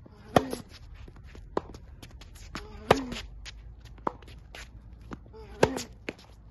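Tennis rally on a hard court: three loud racket strikes on the ball, about two and a half seconds apart, each followed by the hitter's short grunt, with fainter ball impacts between them.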